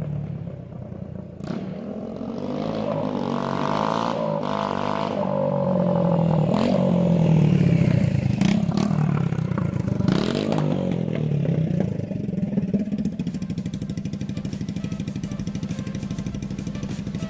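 Beta RR 125 4T's air-cooled single-cylinder four-stroke engine running with the exhaust removed, open and unsilenced. The engine pitch rises and falls as it is revved and ridden, loudest mid-way, then settles to a steadier, lower running near the end.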